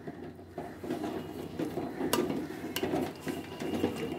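Metal ladle stirring wet dal and greens in an aluminium pressure-cooker pot, with irregular scraping and small clinks against the pot's side.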